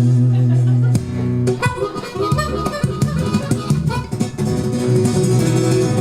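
Instrumental break of a folk-blues song played on harmonica and acoustic guitar. A held chord gives way to quick picked notes about a second in, and settles back into held tones near the end.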